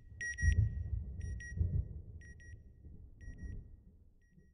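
Electronic beep sound effect: short high double pips repeating about once a second and growing fainter, over a low rumbling swell that is loudest in the first two seconds and dies away near the end.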